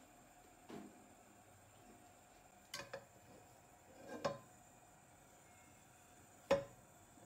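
Nonstick frying pan knocking against a gas hob's pan supports as it is handled and lifted: a handful of short clunks, the sharpest one near the end.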